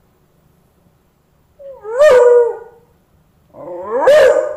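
Beagle howling: two short howls about two seconds apart, each rising and then falling in pitch.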